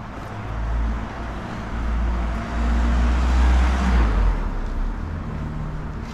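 A car passing close by: engine and tyre noise build up, peak between three and four seconds in, then fade.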